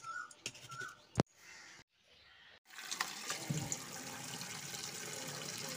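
Tap water running steadily into a steel bowl of sliced potatoes in a steel sink, starting about three seconds in. Before it come a few clicks, one sharp click, and a short silence.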